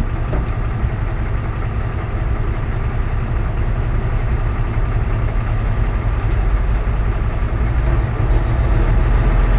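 Semi-truck's diesel engine heard from inside the cab, a steady low rumble as the truck rolls slowly, growing a little louder near the end. A sharp click right at the start.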